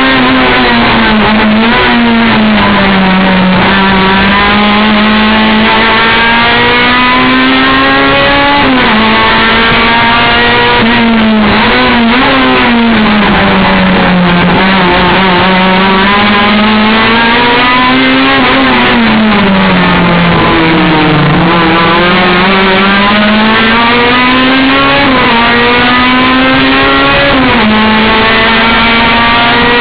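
Race car engine running hard at high revs for a whole stretch of lapping. The pitch climbs steadily, drops suddenly at gear changes, and sinks lower several times as the car slows for corners before climbing again.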